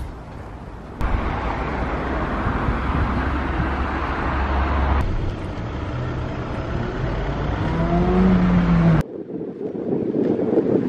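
City street traffic noise, changing abruptly several times. About two-thirds of the way through, a vehicle's engine accelerates, rising in pitch.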